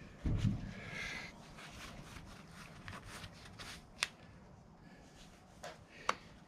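Quiet hand-working noises on a tire-plug insertion tool with the plug half pushed into the tire: faint rustling and scraping, with two sharp clicks, about four and about six seconds in.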